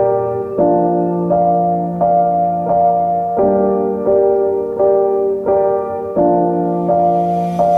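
Background piano music: soft chords struck at an even, unhurried pace, with a hiss swelling near the end.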